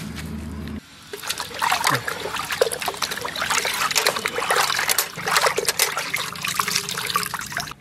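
Water splashing, sloshing and dripping in a metal bucket as hands wash goat offal and squeeze it out, starting about a second in after a short low hum.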